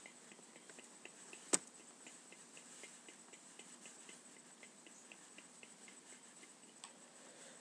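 Faint room tone with a quick run of soft ticks, about four a second, over a thin steady high whine, and one sharp click about a second and a half in.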